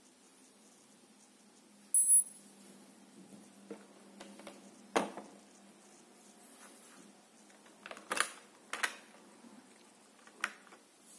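A brief, loud high electronic beep about two seconds in, then scattered sharp plastic clicks and knocks as the phone is lifted out of the clear plastic alignment tray used to fit the screen protector.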